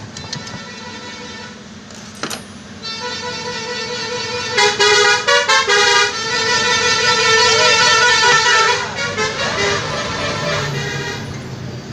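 A vehicle horn with several pitches sounding together. It comes in about three seconds in, gives a run of short toots, then a long held blast that dies away near the end.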